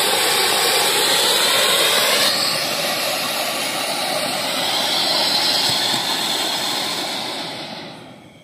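A ground fountain firework (flower pot, the 'H2O Red Falls') sprays sparks with a loud, steady hiss. It dies away over the last second or so as the fountain burns out.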